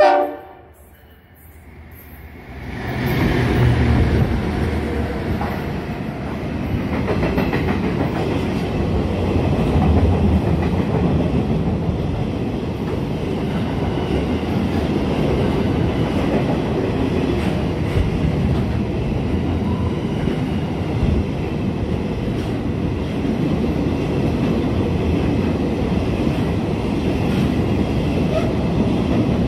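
A freight train's diesel locomotives sound a short horn blast. They pass about three seconds later with a loud engine rumble, and then a long string of freight wagons rolls by with a steady rumble and clickety-clack of wheels on rail joints.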